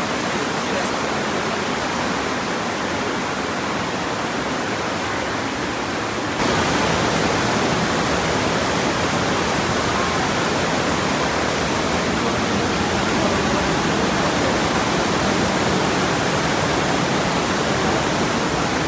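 Steady rushing whitewater of the Partnach river in its narrow gorge. It turns abruptly louder about six seconds in.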